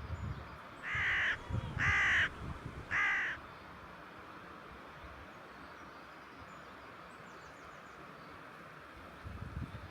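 A bird calling three times, about a second apart, each call short and loud over a steady outdoor hiss.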